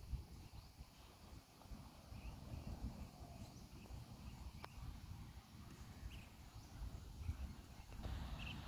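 Faint outdoor ambience: low wind rumble on the microphone with short bird chirps scattered through, and a single sharp click a little past halfway.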